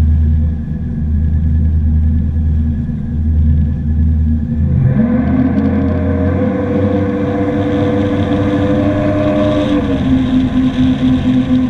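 Twin engines of a 2008 Yamaha 212X jet boat rumbling at low speed, then throttled up about five seconds in for a holeshot. The engine note rises and holds steady as the boat climbs onto plane, with water rushing along the hull, and shifts slightly near the end.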